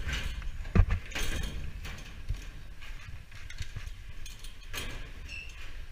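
Metal gear and fittings handled against sheet-metal ventilation ducting: scattered clicks and knocks, the loudest a sharp knock just under a second in.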